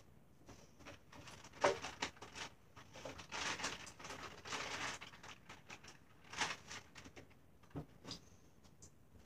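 Handling noise from makeup items and their containers: irregular clicks, taps and rustling close to the microphone, with a sharp click about one and a half seconds in and a denser stretch of rubbing and rummaging in the middle.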